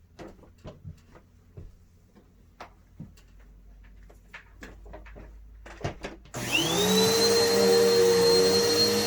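Vacuum cleaner switched on about six seconds in: its motor spins up with a rising whine, then runs at a steady high pitch over a steady hum. Before that come scattered light clicks and knocks.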